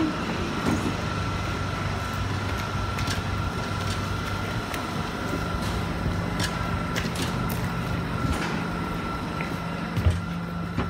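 Electric passenger train standing at the platform with its doors open, giving a steady low hum and a thin high whine. Scattered footsteps and clicks of passengers getting off and boarding, with a thump about ten seconds in.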